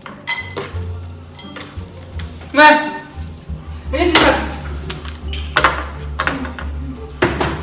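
Kitchen utensils clinking and scraping against a frying pan and dishes, in scattered knocks, with faint frying sizzle. A short pitched sound about two and a half seconds in is the loudest moment, and a falling one follows about a second later.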